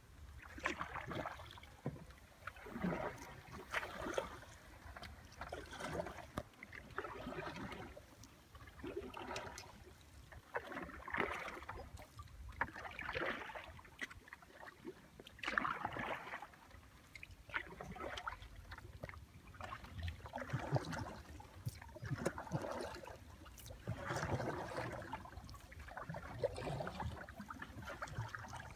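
Kayak paddle strokes dipping into still swamp water and dripping, a splashy swish about once a second.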